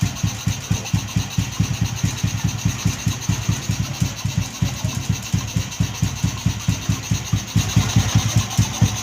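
Honda Wave motorcycle's small single-cylinder engine idling with a steady, even pulse.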